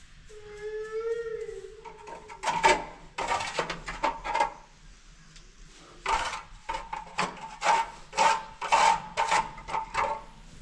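Repeated scraping and rubbing strokes on a tiled bathroom floor, about two to three a second, in two spells with a short pause between. A brief wavering pitched tone comes before them, near the start.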